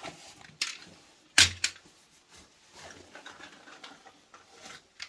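Clicks and knocks of small hard parts being handled. The loudest is a sharp knock about a second and a half in, followed by lighter clicking and rattling.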